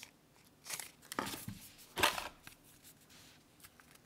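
Packaging wrap being pulled and rustled off a Beats Studio Buds earbud case: a few short scraping rustles, the loudest about two seconds in, then small handling ticks.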